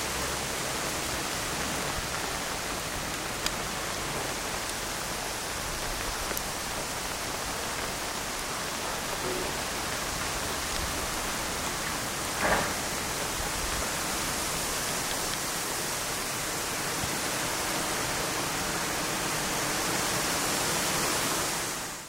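Steady rain falling hard, an even hiss with no letup. A single brief, louder knock comes about halfway through, and the rain sound fades out quickly at the very end.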